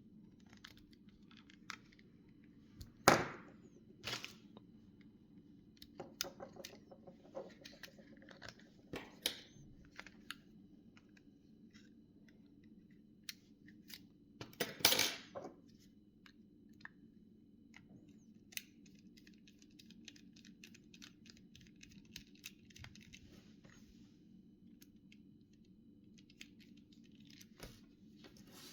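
Small plastic and metal parts of a Samsung SGH-2100 mobile phone being handled and opened with small tools: scattered clicks, taps and scrapes, two louder knocks about three and fifteen seconds in, and a rapid run of fine clicks for several seconds from about eighteen seconds in.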